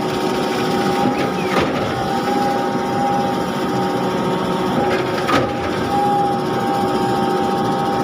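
A Schwing S36X truck-mounted concrete boom pump running steadily, the engine's hum carrying a steady whine. A couple of faint clicks come about a second and a half in and again past five seconds.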